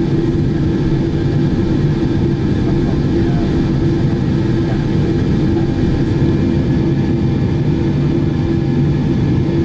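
A Boeing 747-8's four GEnx-2B jet engines at takeoff thrust, heard inside the cabin during the takeoff roll: a steady loud drone with a low hum.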